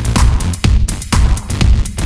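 Electronic dance music with a steady beat, about two beats a second.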